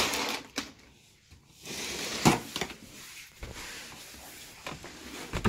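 Rustling and shuffling of someone moving about, with one sharp knock about two seconds in.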